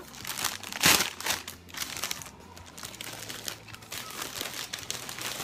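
A plastic shopping bag and crinkly wrapping rustling and crackling as they are handled and opened, with a loud rustle about a second in.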